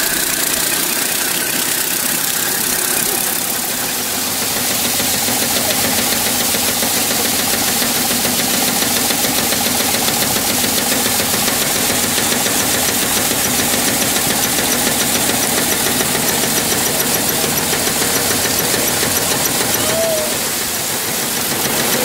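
Pedal-powered grain threshing machine running: the spinning threshing drum and its bicycle-style drive give a steady, fast mechanical rattle and whir as wheat is fed through.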